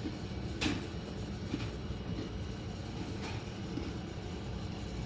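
Crisp mini butter cookies being chewed close to the microphone: a few short crunches, the loudest about half a second in, over a steady low rumble.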